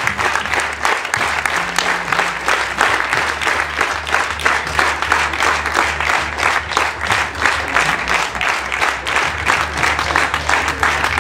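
Audience applauding steadily, the many hands clapping at an even level.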